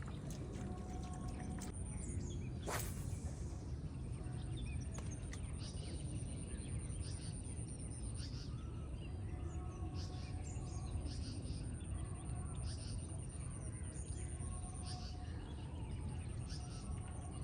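Outdoor ambience with small birds chirping on and off over a steady low rumble and a thin, steady high-pitched tone. A single sharp rushing noise comes about three seconds in.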